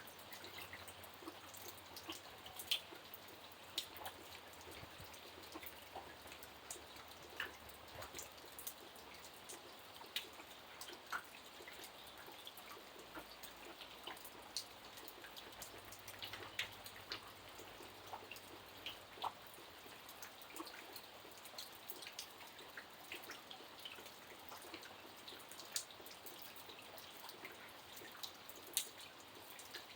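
Light rain falling: scattered single drops and drips landing irregularly over a faint, steady hiss.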